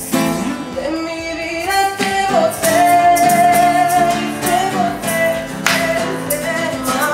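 A small group of men singing together in held notes, accompanied by a strummed acoustic guitar.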